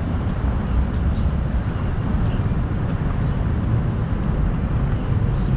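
Steady, gusty rumble of wind buffeting the camera microphone outdoors, loudest in the deep lows, with no separate events standing out.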